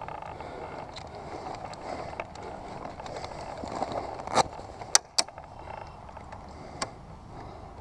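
Rustling and footsteps of a person moving through dry grass, with a few sharp clicks or snaps a little over halfway through.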